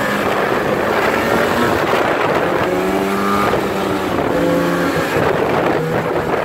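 Snowmobile engine running under way, its note rising and falling several times as the throttle changes, over a steady rush of wind and track noise.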